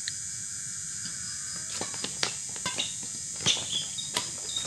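Badminton rally: a run of sharp racket hits on the shuttlecock and squeaks of shoes on the court, starting about two seconds in. Under it is the steady high chirring of insects.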